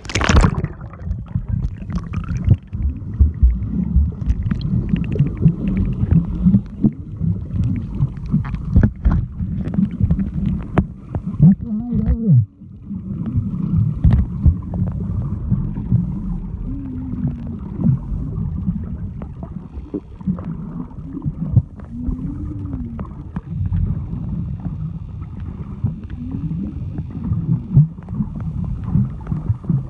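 A short splash as the camera microphone goes under the sea, then the muffled rumbling and sloshing of water around the submerged microphone, with frequent dull knocks and a few low wavering gurgles.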